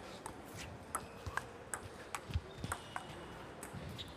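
Table tennis rally: the celluloid-type ball clicking sharply off rubber-faced rackets and the Tibhar Smash 28 table in a quick, irregular run of taps. A few dull low thumps come in among the clicks around the middle.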